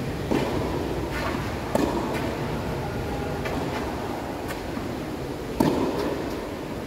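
Tennis ball hits on a court: a few sharp pops, one about a third of a second in, another under two seconds in and the loudest near the end, with fainter ticks between them, over a steady low rumble of background noise.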